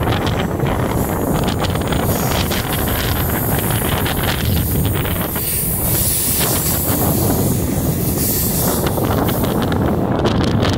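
Strong wind noise buffeting the microphone on a moving MEMU electric train, over the train's steady running noise on the track.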